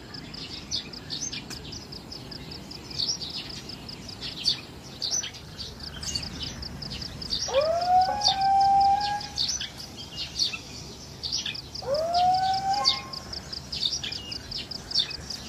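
Small birds chirping busily in a dawn chorus, many quick high chirps. About halfway through, and again some four seconds later, a louder, longer call sweeps up and then holds for a second or two.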